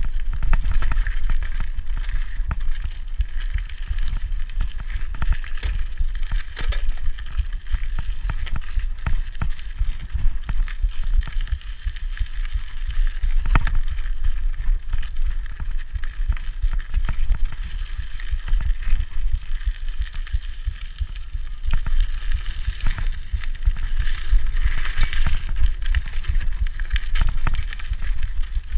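Rigid vintage Peugeot Hurricane mountain bike ridden fast down a dirt singletrack: knobby Michelin Wildgrippers tyres crunching over loose gravel and dirt, with frequent knocks and rattles from the unsuspended bike over bumps and a constant low rumble.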